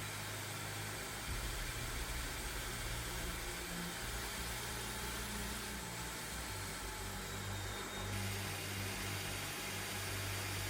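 Steady engine rumble with a constant hiss over it.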